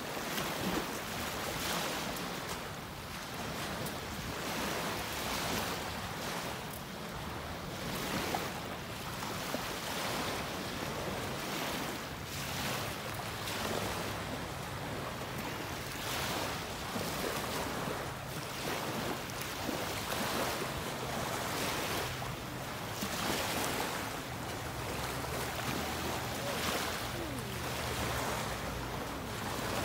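Small waves lapping and washing up onto a sandy beach, the wash swelling every second or two.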